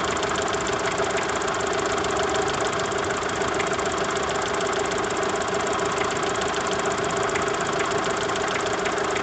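1.4-litre car engine running steadily at idle with a rapid, even knock. The owner does not know what is causing it.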